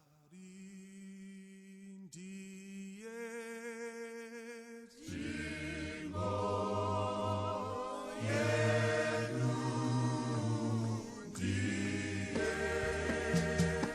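Choir singing. A single sustained voice opens, and the full choir comes in about five seconds in.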